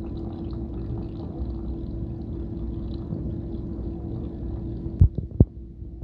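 Leftover water draining from a front-loading washing machine's emergency drain hose, a thin stream pouring into a plastic basin over a steady low hum. Near the end the pouring stops and two sharp knocks follow.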